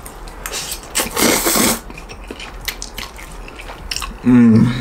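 A person slurping and chewing instant noodles, with one long noisy slurp about a second in and small wet clicks of chewing around it. A short hum of the voice near the end.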